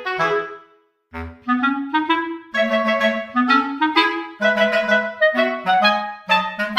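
Background music: a woodwind melody of short, bouncy notes, with a brief pause about a second in.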